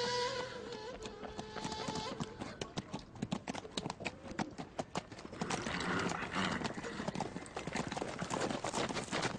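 A horse's hooves clip-clopping on hard ground as it is ridden along, a rapid, uneven run of hoof strikes that starts about a second in.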